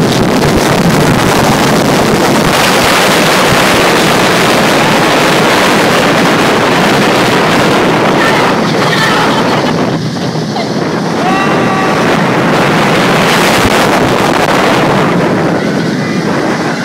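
Heavy wind rushing over the phone's microphone as the Apollo's Chariot steel hyper coaster train speeds along its track, mixed with the train's running noise, easing slightly about ten seconds in and again near the end. A few faint short pitched cries show briefly about nine to twelve seconds in.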